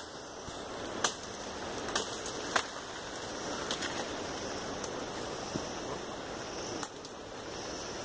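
Dry bamboo stems and dead leaves rustling and crackling as someone pushes and crawls through dense undergrowth, with a few sharp snaps of twigs.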